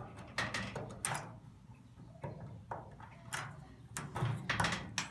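Scattered light clicks and knocks, the metal parts of an old shed door handle and lock being handled and worked loose, a little louder and closer together near the end.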